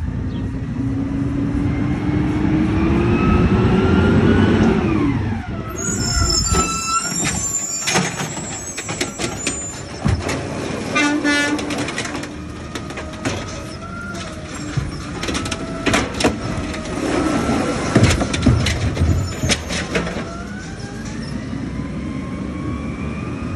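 Automated side-loader garbage truck at work. Its engine revs up and drops as it pulls up. The hydraulic arm knocks and clanks as it lifts and empties a wheeled trash cart, with the loudest bangs about three-quarters through as the cart is shaken out. The engine rises again as the truck moves off.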